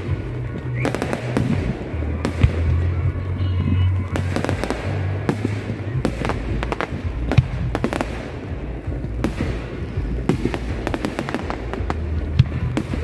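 Aerial fireworks going off in quick succession: many sharp bangs and crackles, with a few louder single bangs. Music with a deep bass line plays underneath.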